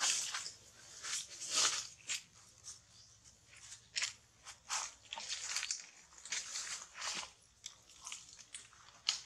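Dry fallen leaves crunching and rustling underfoot in irregular crackly bursts as a monkey walks over thick leaf litter.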